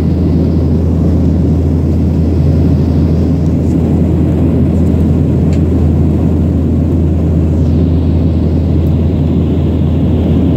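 Steady low rumble of an airliner cabin in flight: jet engine and airflow noise heard from inside the plane.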